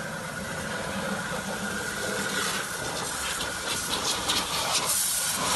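HTP piston-pump sprayer driven by a 3 hp motor, running with a steady hum while water sprays out as a hiss that grows louder from about two seconds in.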